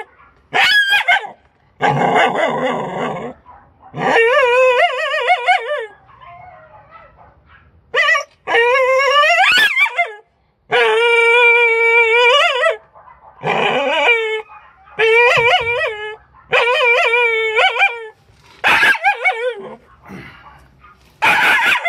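A dog crying out over and over in about a dozen long, pitched whining cries, each up to about two seconds long, with one rising in pitch about nine seconds in.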